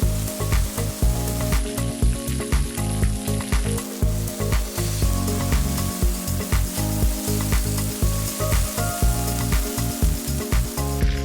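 Rabbit pieces sizzling as they fry in hot oil, over background music with a steady beat.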